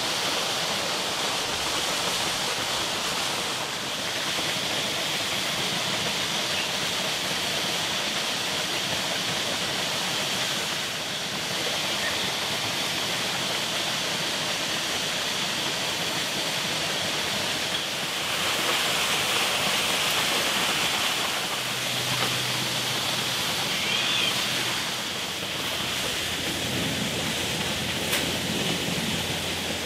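A stream rushing over rocks, a steady even rush of water. A brief metallic click comes near the end.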